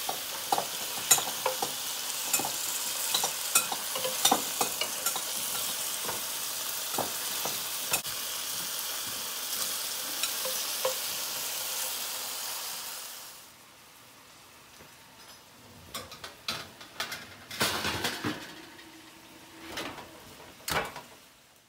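Thin-sliced steak sizzling in a square frying pan while a spatula stirs it, with small scrapes and taps against the pan. About 13 seconds in the sizzling stops, and quieter knocks and clatter follow as an oven door is opened.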